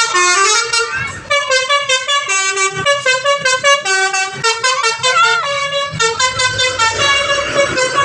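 Bus 'telolet' musical horn of the Basuri type playing a fast melody of short stepped notes, with a brief break about a second in.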